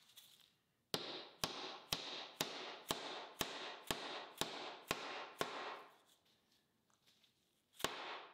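A red mallet tapping a rubber-lipped shaft seal down into a bronze sleeve, about ten light, even taps roughly two a second, each with a short fading ring. After a pause there is one last tap near the end.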